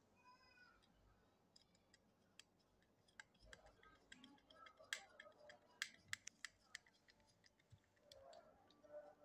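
Faint small clicks and taps of a screwdriver working the screws of a hair trimmer's circuit board inside its plastic housing, most of them in the middle few seconds, the sharpest about five and six seconds in.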